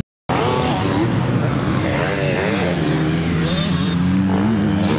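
Motocross dirt bike engines revving on the track, several at once, their pitch rising and falling. The sound drops out completely for the first quarter second or so.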